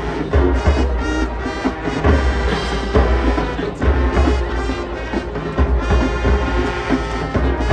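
High school marching band playing its halftime show: sustained brass chords with percussion and heavy low drum hits that come and go every second or so.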